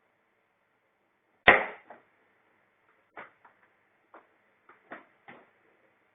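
One sharp knock about a second and a half in, then several lighter knocks and clicks, as the parts of a highchair are handled and fitted together.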